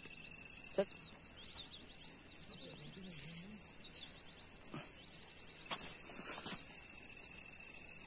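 A steady high-pitched chorus of night insects, with many short high chirps over it and a few sharp clicks.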